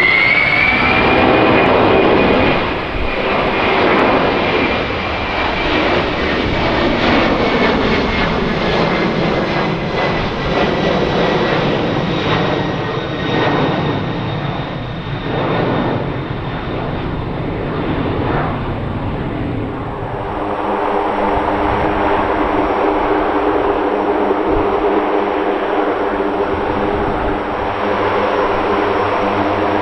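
Airbus CC-150 Polaris (A310) twin jet engines running at climb power as it passes overhead, a high whine sliding slowly down in pitch as it goes by. About two-thirds of the way through, this gives way to the steady, evenly pitched hum of a Lockheed CC-130J Hercules's four turboprop engines and propellers on the ground.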